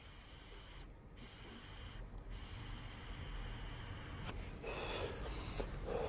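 A man drawing a long pull on a disposable vape pen, a faint airy hiss of inhaling, then a louder breathy exhale of the vapour near the end.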